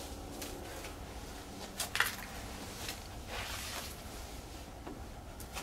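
A sharp knock with a couple of clicks about two seconds in, then a brief rustle a little later, over a low steady rumble.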